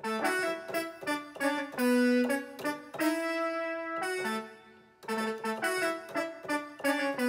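Roland XP-10 synthesizer being played: a melodic line of bright, pitched notes, one phrase dying away about four and a half seconds in before the next begins.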